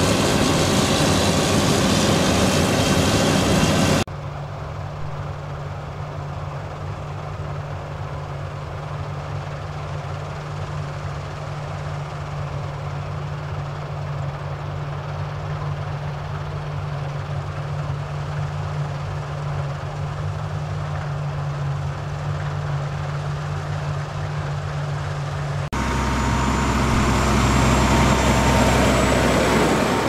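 A Massey Ferguson combine harvester threshing barley up close, its engine and threshing gear running with a loud, dense rush. About four seconds in, the sound drops to the steadier, quieter hum of the combine working further off. Near the end, a tractor and grain trailer pass close with a deep rumble and a high whine.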